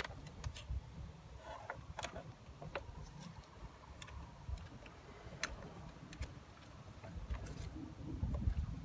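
Scattered light clicks and taps over an irregular low rumble.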